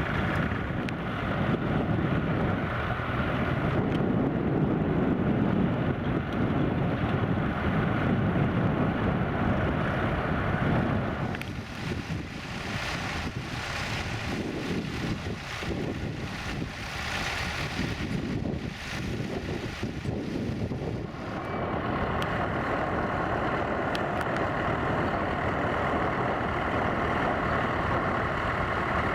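Vintage tractor engine running under a ploughing load. The sound dips and changes about 11 seconds in, and a steadier engine note takes over around 22 seconds.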